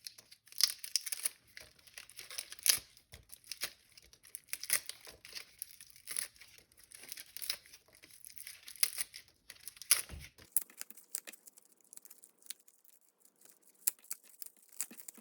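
Leaves being peeled by hand off a pineapple crown: an irregular run of crackling, tearing snaps, sparser and fainter after about ten seconds.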